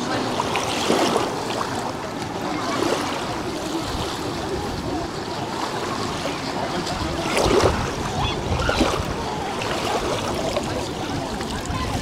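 A steady rush of water, with people's voices faintly in the background.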